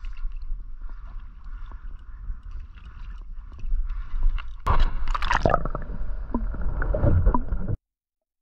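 Water sloshing against a kayak hull, with wind buffeting the camera microphone. It turns louder and rougher a little past halfway, then cuts off suddenly near the end.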